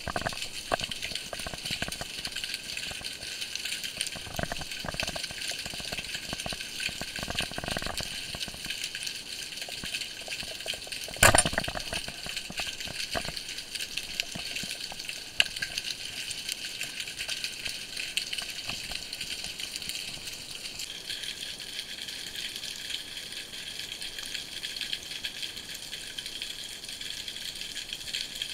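Underwater ambience heard through a diving camera housing: a dense, constant crackling and clicking over the rocky seabed. One sharp, loud knock comes about eleven seconds in.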